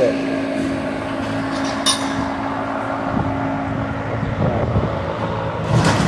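Large pedestal shop fan running with a steady whir, with a steady hum that cuts off about three-quarters of the way through and a sharp click about two seconds in.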